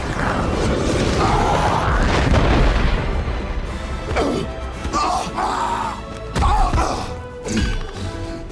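Dramatic film score under battle sound effects: heavy booms and crashes, with a long rumbling stretch at first and two hard hits near the end.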